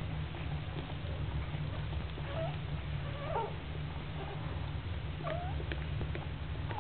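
Newborn English cocker spaniel puppies, five days old, squeaking: about three short, high, bending cries over a steady low hum.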